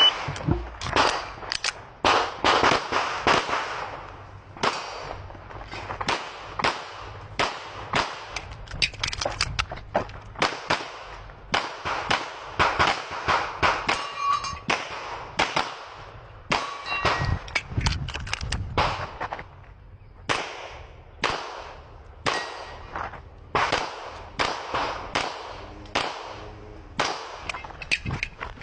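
Handgun shots fired in fast pairs and strings through a practical-shooting course of fire, with short pauses between groups for moving and reloading. Now and then a brief metallic ring sounds, typical of steel targets being hit.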